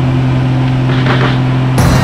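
GB1 GameBird's engine and propeller droning steadily, heard inside the cockpit in flight. Near the end it cuts abruptly to a louder sound with a regular beat.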